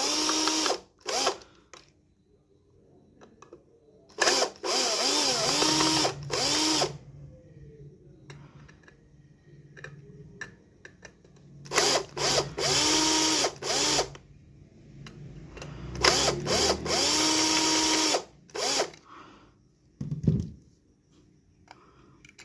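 A cordless power driver unscrewing the casing screws of a portable inverter. It runs in several bursts of about two to three seconds each, its motor whine rising and falling within each burst, with short quiet pauses and small clicks between them.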